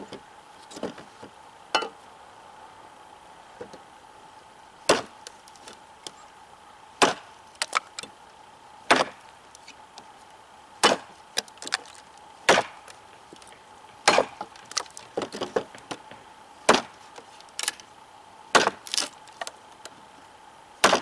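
Large cKc Voyager chopping knife striking a painted 2x4 in light, mostly wrist-driven chops: a run of sharp wooden knocks at irregular intervals, some in quick pairs, the hard ones starting about five seconds in.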